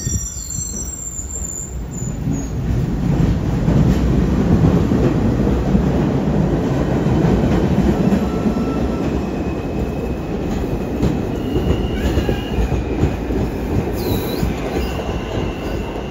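R160 subway train pulling out of the station and running past, a loud rumble of wheels on rail that swells over the first few seconds, with thin whining motor tones as it gathers speed and a brief high wheel squeal about fourteen seconds in.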